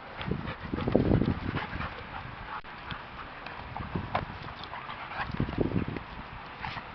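A Bouvier and a Giant Schnauzer playing: irregular scuffling, paw footfalls and body thumps, loudest about a second in.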